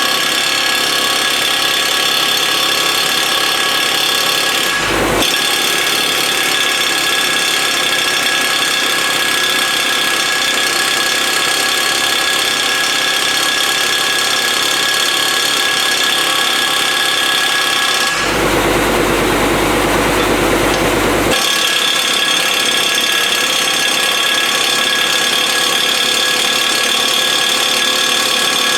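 Engine of a service-truck air compressor running steadily. About 18 seconds in, a rougher, noisier burst of about three seconds breaks in over it.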